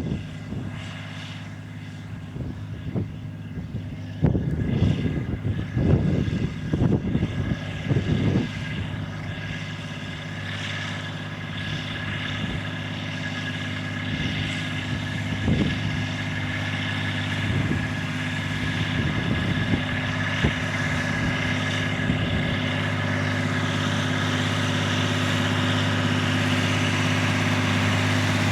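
Farm tractor engine running steadily under load, growing louder through the second half. Several short low bumps come between about four and eight seconds in.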